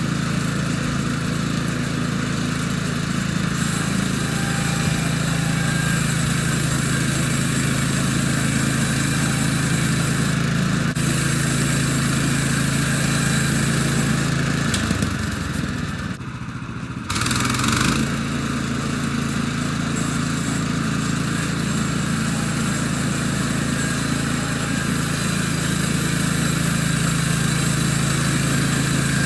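Woodland Mills HM126 band sawmill running, its gasoline engine driving the band blade through a slab during a test cut. The engine note holds steady, dips and drops briefly about halfway through, then recovers and runs on steadily.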